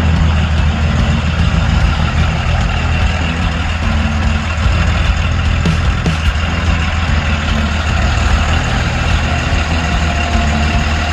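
Porsche 911 3.2 Carrera's air-cooled flat-six engine idling steadily after its rebuild.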